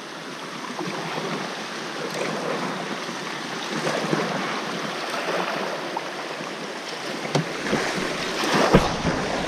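Water rushing and splashing around a fishing kayak as it runs a shallow creek riffle, with a few knocks near the end.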